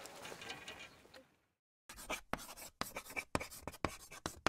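Faint outdoor ambience fades out. After a moment of silence, chalk scratches and taps across a blackboard in quick, irregular strokes, writing words.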